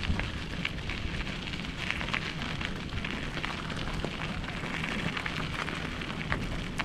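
Wind buffeting the microphone as a steady low rush, with the short, irregular footfalls of a runner on a park trail.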